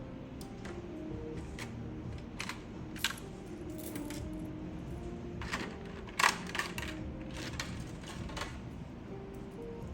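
Scattered clicks and taps of small hard keyboard parts being handled, the loudest a sharp knock about six seconds in, over faint background music.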